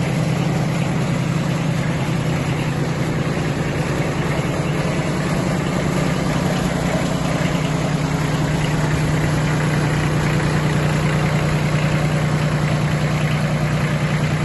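Kubota B1702DT mini tractor's water-cooled three-cylinder diesel engine idling steadily.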